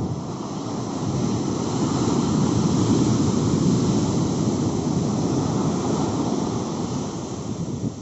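Sea surf: a wave breaking close to the shore and its foam rushing up the sand, the rush swelling to its loudest a few seconds in and easing off near the end.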